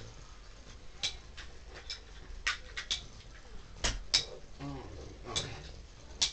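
Two Beyblade spinning tops spinning in a plastic stadium and clashing, giving sharp clacks about once a second, with a quick cluster of hits around the middle.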